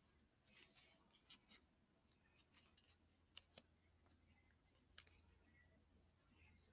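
Faint handling noise: a plush toy and its card swing tag rubbed and turned in the hands, giving scattered small clicks and rustles.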